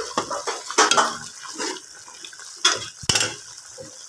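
Metal spoon stirring a watery potato curry in a metal pot, clinking against the pot several times, loudest about a second in and again near three seconds, with a wet sloshing of the gravy between.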